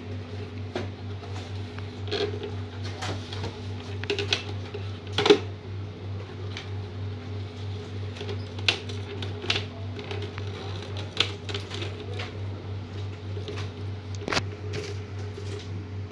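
Irregular clicks and knocks of a laser printer's plastic scanner housing being handled and pried apart, the loudest about five seconds in, over a steady low hum.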